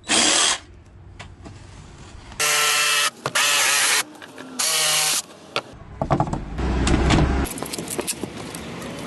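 Electric jigsaw cutting MDF in several short bursts, the motor starting and stopping between passes. Near the end come a low rumble and scattered clicks and knocks, as of the board being handled.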